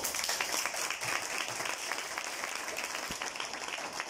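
Audience applauding: many hands clapping at once in a dense, even patter.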